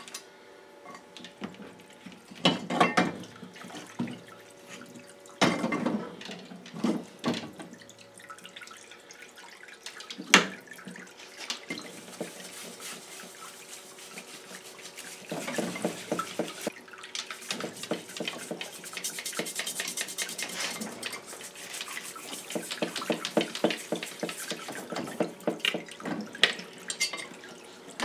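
Small lawn mower engine parts being scrubbed with a brush in a parts washer's cleaning fluid: liquid splashing and dripping, with a few clanks of metal parts in the first ten seconds. From about halfway, quick rhythmic brush strokes.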